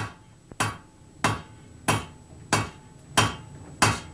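Blacksmith's four-pound hand hammer striking a red-hot metal bar on an anvil in a steady forging rhythm. There are seven blows, about one every two-thirds of a second, each ringing briefly.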